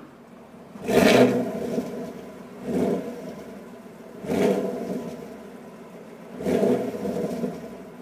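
2018 Chevrolet Camaro SS's 6.2-litre V8 revved four times in park, with its exhaust sound in Sport mode. Each rev climbs quickly in pitch and falls back to idle, and the first is the loudest.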